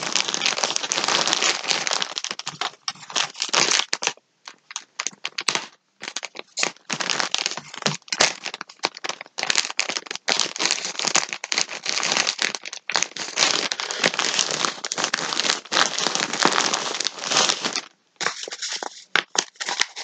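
Plastic wrapping of a pack of yarn crinkling and crackling as it is handled and opened, in irregular spells with a few brief pauses.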